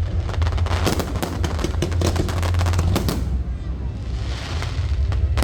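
Aerial fireworks going off: a dense run of rapid crackling shots over a heavy low rumble for about three seconds, easing off into a hiss, then more cracks near the end.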